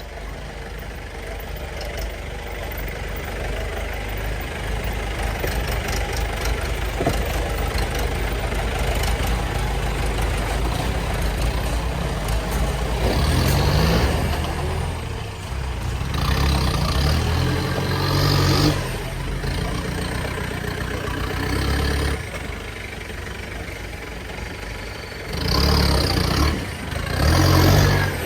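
Four-wheel-drive off-road vehicle's engine running, rising gradually, then revving hard in several surges through the second half.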